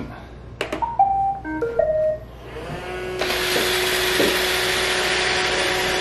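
iRobot Roomba robot vacuum started with its Clean button. A click, then its short start-up tune of several beeped notes. About three seconds in its vacuum and brush motors spin up and run steadily as it drives off.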